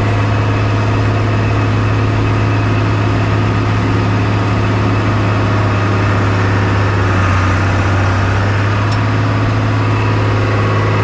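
Engine of a 1998 Bombardier (Prinoth) BR-160 snowcat running steadily as its front blade pushes snow, a strong unbroken low drone.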